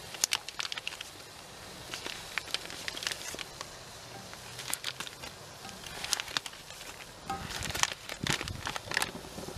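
Plastic sausage packet crinkling and rustling in irregular sharp clicks as raw sausages are pulled out and laid on a griddle pan on a barbecue.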